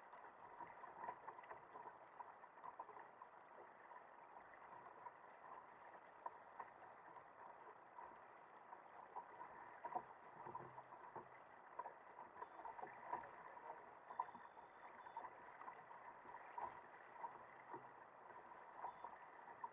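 Faint water rushing and slapping against the hull and outrigger float of a sailing kayak under way in choppy sea, with frequent small splashes breaking through a steady wash.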